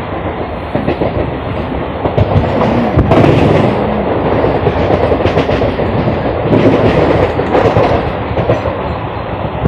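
Three-phase electric multiple-unit local train running through a station yard, its wheels clattering over rail joints and points, heard from the coach's open doorway.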